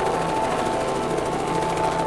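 Light helicopter hovering low, its rotor beating in a rapid, steady chop.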